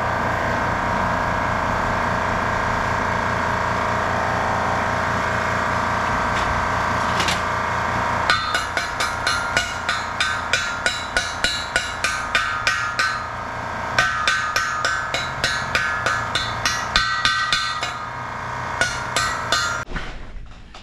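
A steady mechanical running noise for the first several seconds, then rapid hammer blows on steel, about three or four a second, each with a bright metallic ring, on freshly welded steel, stopping shortly before the end.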